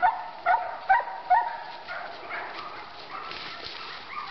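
Boar-hunting dogs yelping: a run of short, high-pitched yips, four loud ones in the first second and a half, then fainter ones trailing off.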